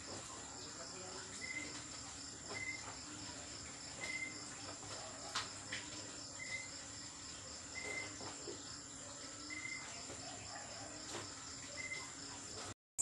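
Crickets chirring steadily in a high, fast pulsing trill, with a lower short chirp repeating every second or so and a few faint clicks. The sound cuts off abruptly just before the end.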